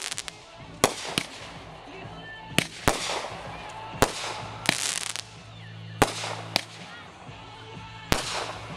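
Aerial fireworks bursting overhead: about nine sharp bangs at uneven intervals of half a second to two seconds, several trailing off into a short crackling hiss.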